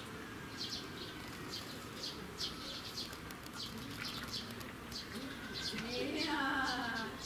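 Faint, high, short chirps repeated steadily about three times a second. A faint murmur of voices rises near the end.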